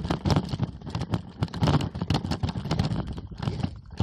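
Mountain bike clattering and rattling over rough ground: a dense run of irregular knocks and clicks over a low rumble.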